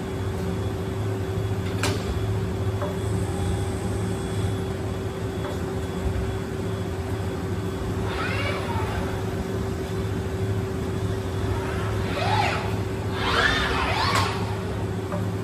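Industrial robot arm's servo motors whining in rising-and-falling sweeps as the arm swings through its tool-assembly moves, three times in the second half. Under it runs a steady machine hum with a constant tone, and there is one sharp click about two seconds in.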